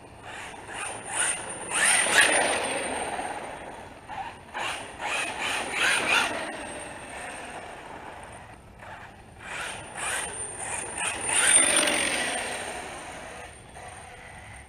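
HPI Baja 5B 1/5-scale RC car with a brushless motor on 8S, geared 48/24, making high-speed runs: the motor and drivetrain noise swells and fades as it accelerates and passes, loudest about two, six and twelve seconds in.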